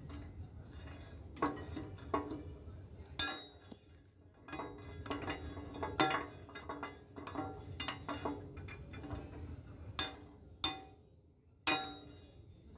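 Steel-on-steel clinks and knocks with a short metallic ring, a steel bar and sledgehammer striking at the pin bore of a JCB backhoe bucket during bush removal. The strikes come irregularly, a few seconds apart, with several sharp ones near the end.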